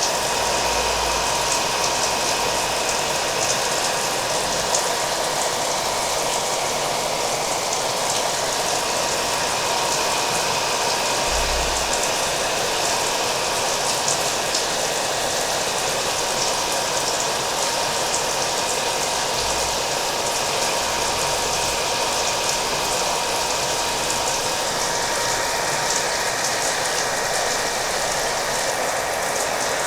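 A hair dryer running steadily, its motor giving a thin, even whine over a constant rush of air, mixed with the hiss of falling rain.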